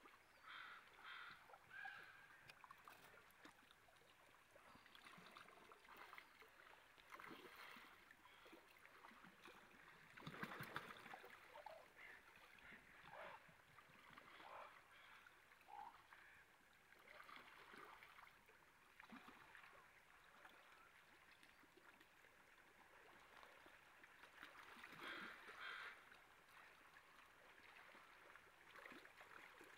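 Faint running stream water with occasional splashing, loudest about ten seconds in.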